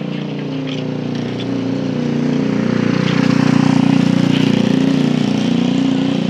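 A small motorcycle engine running as it passes close by. It grows louder to a peak about three to four seconds in, then eases off as the bike pulls ahead.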